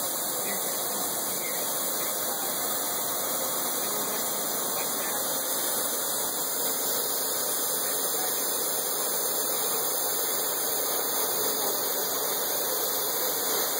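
Kuraki vertical machining center milling the side of a metal block: a steady, even hiss of cutting and machine noise with no clear pitch.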